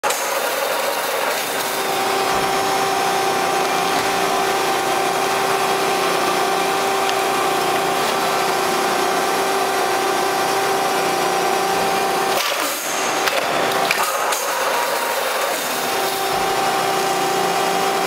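A Selco two-ram cardboard baler running: its hydraulic power unit gives a steady whine over a loud hiss while the ram pushes finished bales out. About twelve seconds in, the whine breaks off for a few seconds with a couple of knocks, then comes back.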